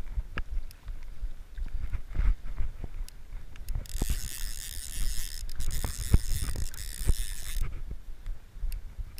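Click-and-pawl fly reel ratcheting in a steady buzz for about four seconds in the middle, over a low rumble and scattered knocks.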